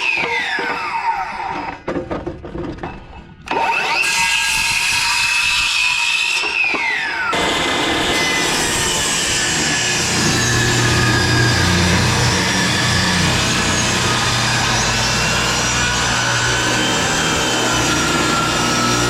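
Electric power saw cutting 2x4 lumber. The motor winds down at the start, spins up again about three and a half seconds in and winds down a few seconds later, then runs steadily through the wood for the rest.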